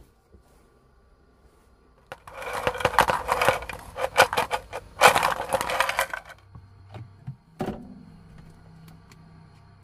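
Crinkling, crackling handling noise, dense with small sharp cracks, starting about two seconds in and lasting about four seconds, followed by a single click.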